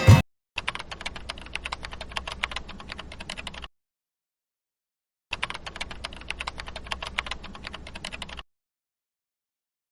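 Rapid computer-keyboard typing clatter in two runs of about three seconds each, both starting and stopping abruptly.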